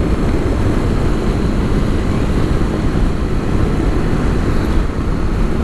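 Steady wind rush and turbulence on the rider's microphone while riding a Honda ST1100 Pan-European motorcycle at road speed, with the steady hum of its V4 engine underneath.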